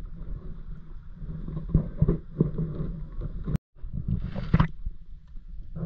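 Low wind rumble on the microphone with water sloshing and splashing from a kayak being paddled. The sound cuts out completely for a moment about three and a half seconds in.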